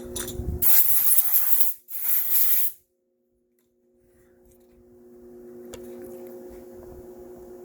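Milling machine's motor humming steadily, broken by two loud bursts of hiss in the first three seconds. The hum cuts out for about a second, then comes back gradually.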